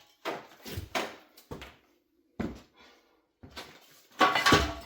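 Metal knocks and clunks as a Mini Cooper R56's rear subframe is worked free of the car: four separate sharp knocks, then a louder, heavier clunk about four seconds in.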